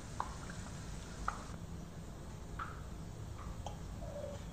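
A few light metallic clicks and taps, roughly one a second, from a wire skimmer knocking against the wok and plate as fried pakoras are lifted out, over a faint steady hiss.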